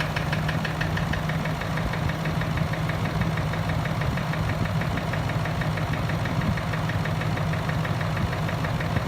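Range Rover TDV8 V8 diesel engine idling steadily just after starting, with an even diesel clatter.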